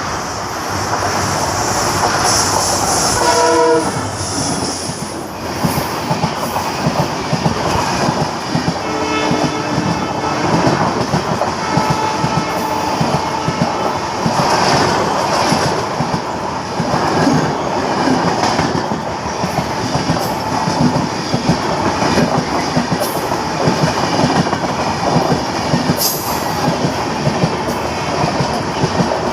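WDP4 diesel locomotive sounding its horn while hauling an express passenger train at speed: a short blast about three seconds in and a longer steady one from about nine to thirteen seconds in. Coaches' wheels clatter over the rail joints for the rest.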